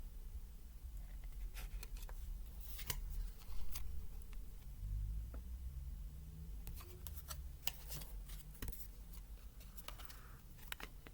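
Tarot cards being handled, with scattered light clicks and taps as cards are picked up, turned and laid down, in two clusters.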